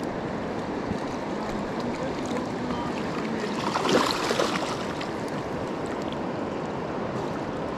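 Steady rush of a shallow river running over rocks. About four seconds in, a hooked steelhead thrashes and splashes briefly at the surface.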